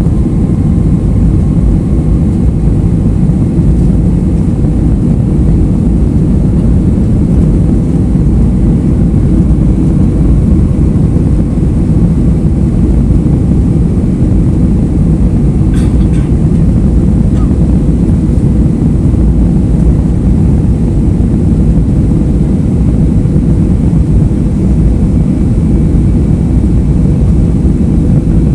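Steady, loud cabin noise of an airliner in flight: a low, even rumble of engines and airflow with a faint steady hum, and one faint click about halfway through.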